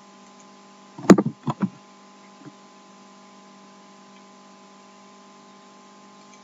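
A steady electrical hum made of several even tones, the mains hum picked up by the recording setup. About a second in, a brief voice sound of a syllable or two.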